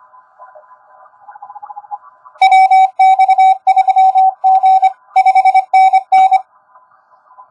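Morse code sidetone from an Index Labs QRP+ transceiver as the operator sends CW on a Bencher iambic paddle: a loud single-pitched beep keyed in dits and dahs for about four seconds, starting about two and a half seconds in. Before and after it comes faint shortwave receiver hiss with weak Morse signals. The receiver noise drops out while the beep sounds, as the rig mutes its receiver to transmit.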